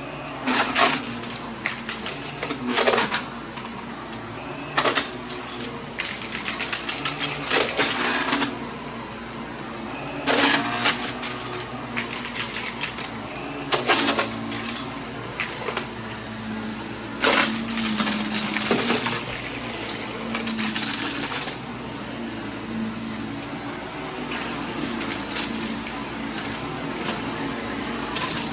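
Vacuum cleaner running steadily while sucking up loose debris, which rattles and clatters through it in irregular bursts every second or few.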